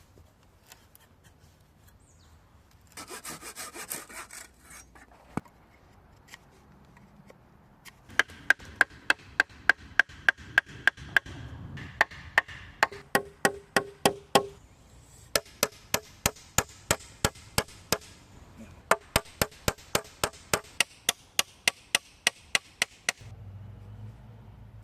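Hand tools working a wooden branch: a short rough rubbing stretch, then long runs of sharp, regular strokes about two to three a second, broken by brief pauses.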